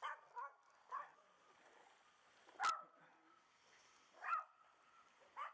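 Short, sharp animal calls, faint, repeated about six times at uneven intervals, the loudest one near the middle.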